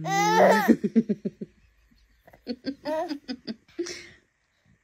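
Baby laughing in two bursts: a high rising squeal that breaks into quick giggles in the first second and a half, then another run of laughs from about two and a half to four seconds in.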